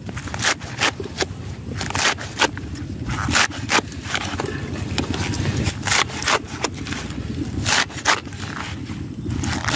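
Knife chopping through kangkong (water spinach) stems on a wooden board: sharp chops at an uneven pace, about one or two a second, with a faint scrape between them.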